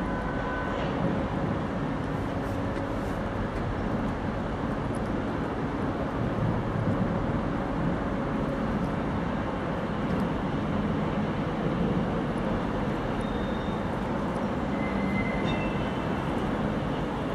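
A train passing close by on the line, with steady rolling noise and faint held tones over it.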